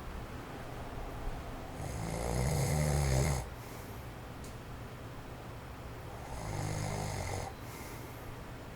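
Heavy snoring of a sleeping man in his forties who has sleep apnea: two long snores about four seconds apart, the first stronger. Under them runs the faint steady hiss of an electric fan on its low setting.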